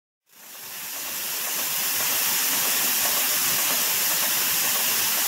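A steady rushing hiss, strongest in the highs, with no pitch or rhythm. It fades in over the first couple of seconds and cuts off abruptly near the end.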